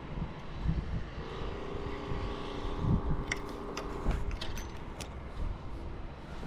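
A distant motor hums steadily for about three seconds over a low rumble, then cuts off abruptly. A few sharp clicks or knocks come around the time it stops.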